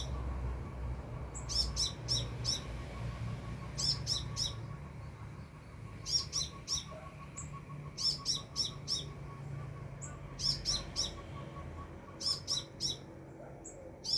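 A sunbird (the bird called kolibri in Indonesia) calling close overhead: short, sharp, high chirps in quick runs of three or four, repeated about every two seconds.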